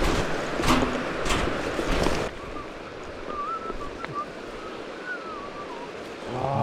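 Rushing water of a fast-flowing, rocky mountain stream. For the first two seconds it is louder, with a few sharp knocks in the noise. Then it cuts abruptly to a steadier, quieter rush with a faint, high whistled call over it.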